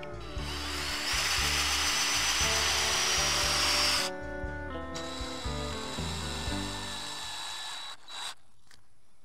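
Power drill running in two spells: its motor whine rises as it spins up about half a second in and runs under load until about 4 s, then runs again more lightly from about 5 s until near the end. Background music with a steady bass beat plays under it.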